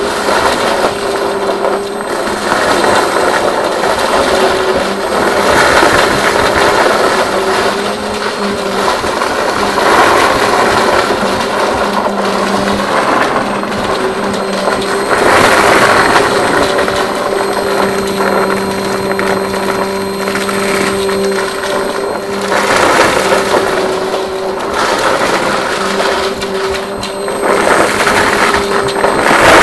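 Vacuum cleaner running with a steady motor tone under a loud rush of air, the noise swelling and easing every few seconds.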